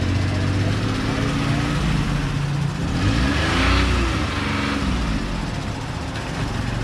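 Small engine of a mini pickup truck running at idle and revved once about three seconds in, its pitch rising and falling back before it settles.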